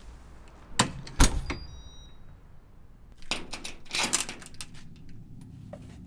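A digital keypad door lock on an apartment door: two sharp clunks, then a short run of high electronic beeps of different pitches, then a burst of clicking and clattering from the latch and handle as the door is worked.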